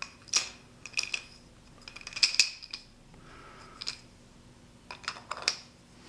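Aluminium Mag-Lite flashlight parts and a plastic adapter sleeve handled by hand: a string of light clicks and clinks, thickest about two seconds in and again near the end.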